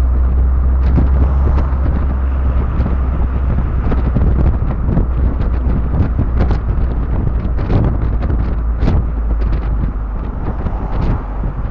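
Heavy wind noise buffeting the microphone in an open-top MGB convertible on the move: a continuous low rumble with irregular gusts.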